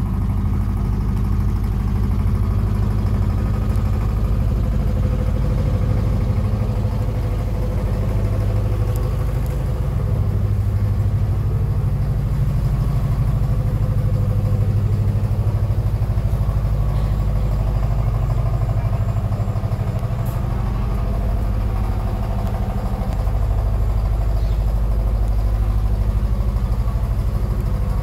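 A steady low engine-like drone, a continuous hum with an uneven rumble underneath.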